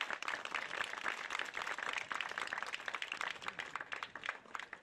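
A small crowd applauding with dense hand claps that thin out and fade near the end.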